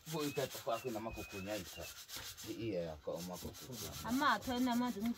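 People's voices talking in short, rising and falling phrases, over a scratchy rubbing noise.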